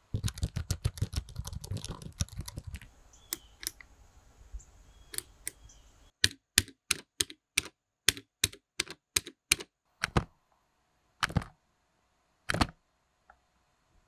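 Push buttons and footswitches being pressed over and over, clicking: a quick run of clicks with low thumps at first, then sparser clicks, then a regular run of about three clicks a second, ending with a few separate presses.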